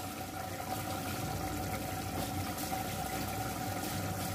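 Meat and potato curry simmering in an aluminium pot on a gas stove: a steady, watery bubbling hiss while the masala cooks down.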